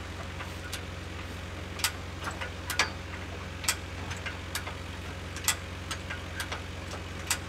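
Small loader tractor's engine idling steadily, with irregular sharp clicks and knocks over it, about a dozen in all.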